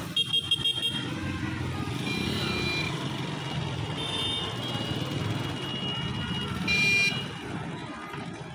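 Vehicle horns sounding over a steady low engine rumble. A quick run of short beeps comes first, then a few longer horn tones, and the loudest, longest blast comes about seven seconds in.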